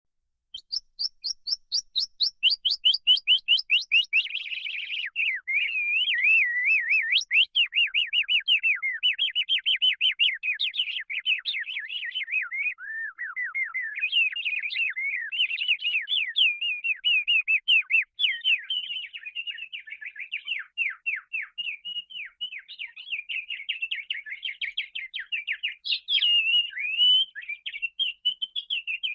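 Domestic canary singing a long continuous song of rapid trills and warbles. Fast repeated high notes change from one phrase to the next every few seconds.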